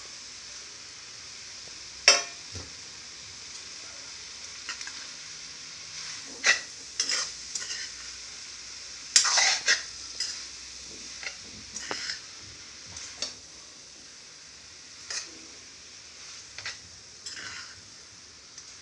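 Shredded vegetables and paneer sizzling in a non-stick kadhai while a spatula stirs and scrapes the pan, with sharp scraping strokes at irregular intervals over a steady sizzle, the loudest about two seconds in and halfway through.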